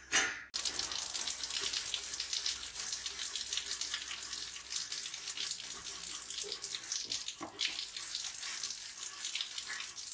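Water from a hose running and splashing onto a rusty knife blade and a metal grate as the blade is rinsed and rubbed down. It starts about half a second in, after a couple of brief loud sounds, and then runs on steadily.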